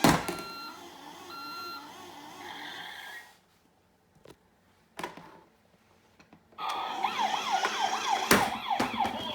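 Electronic sound effects from a Road Rippers Police K9 Unit toy vehicle: a sharp click, about three seconds of beeping electronic tones, a pause with faint clicks, then a fast yelping police siren for the last few seconds, with another click during it.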